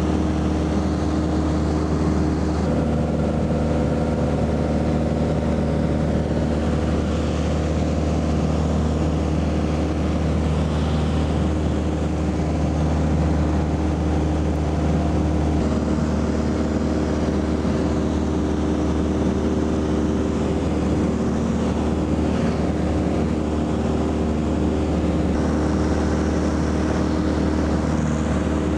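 Small propeller aircraft's engine and propeller droning steadily, heard from inside the cabin in cruising flight: a low rumble with several steady tones over it.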